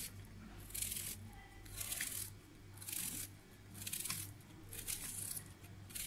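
A small knife slicing through a raw onion held in the hand, a crisp cut about once a second.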